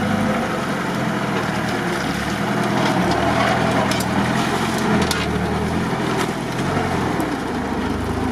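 GAZ-69 four-by-four working through deep mud at close range, its engine running under load with the revs rising and falling. Its tyres churn the mud, and a couple of sharp clicks come about four and five seconds in.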